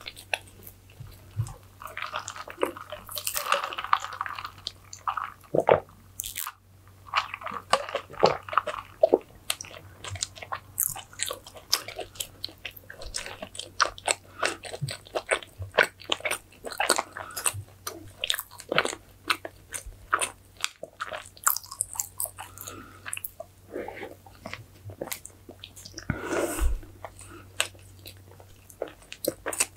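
Close-miked eating sounds: a person chewing with her mouth closed, with many short wet smacks and crisp clicks, louder for a moment about 3 to 4 seconds in and again near 26 seconds.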